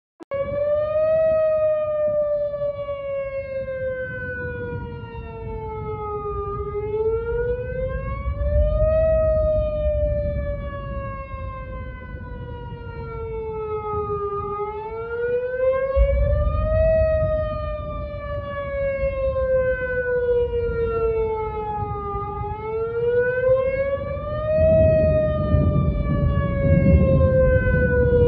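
Outdoor tornado warning siren wailing. Its pitch rises over about two seconds, then falls slowly over about six, and the cycle repeats about every eight seconds. A low rumbling noise runs underneath and swells at times.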